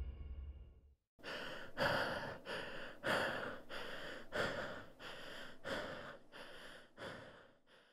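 A woman panting hard from intense exercise: quick, heavy breaths in and out, about one every half second. The panting starts about a second in and stops just before the end.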